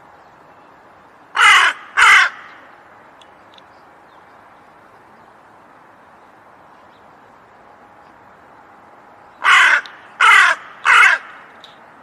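A crow cawing: two harsh caws in quick succession, then after a long pause three more about a second apart, over a steady faint hiss.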